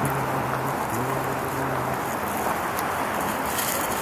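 Steady outdoor rushing noise, with a low steady hum that sounds twice in the first two seconds, each time for about a second.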